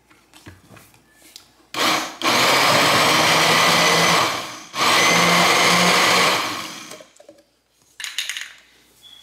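Countertop blender motor running in two bursts of about two seconds each, blending riced cauliflower with cream into a mash, winding down after each burst. A short clatter near the end.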